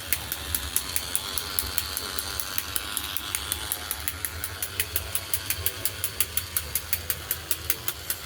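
Battery-powered New Bright Holiday Village toy train running around its track: a steady click-clack of about five or six clicks a second over the hum of its small electric motor.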